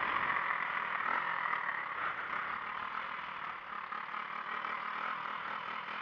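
Small motorcycle engine running while riding, mixed with wind and road noise on the mic, the level easing off slowly.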